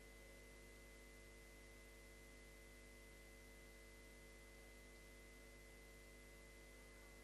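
Near silence: a steady faint hiss with a constant electrical hum.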